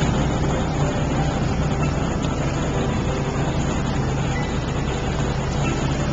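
Motorboat engine running steadily at low speed: a constant low hum under a haze of running noise.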